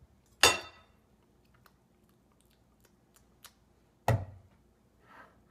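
Metal fork knocking and clinking against a tin can at a table: two louder knocks, about half a second in and about four seconds in, with soft clicks between.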